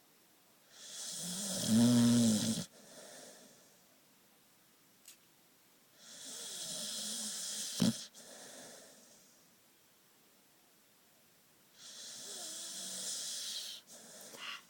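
A sleeping puppy snoring: three slow snores about five to six seconds apart, each a hissing breath in followed by a softer breath out, the first with a low buzzing tone. A short sharp click comes near the middle.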